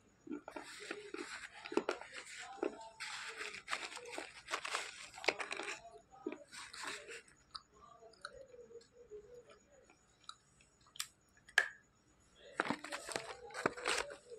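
Slate pencils bitten and chewed, making dense gritty crunching for the first several seconds. After a quieter pause come two sharp clicks, then another run of crunching near the end.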